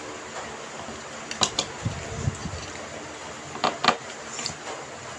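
Eating sounds at a table: two pairs of sharp clicks, about a second and a half in and again near four seconds in, with a low muffled stretch between them, over a steady background hum.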